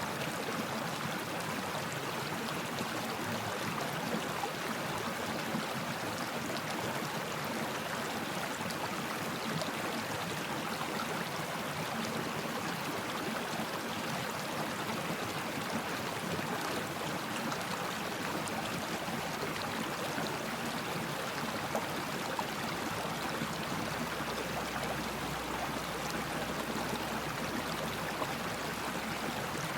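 Flowing stream water, a steady unbroken rush with no change.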